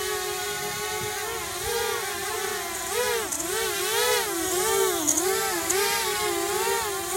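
Brushless motor on an Eachine drone whining steadily, its pitch wavering up and down, more strongly from about three seconds in at about two wobbles a second. This is the strange noise blamed on the ESC.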